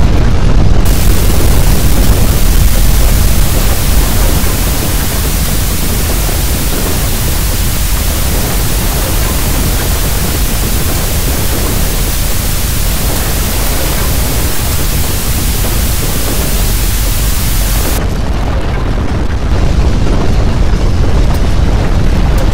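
Loud static hiss from a lost video signal, laid over a deep rumble. The hiss starts about a second in and stops about four seconds before the end, leaving the rumble.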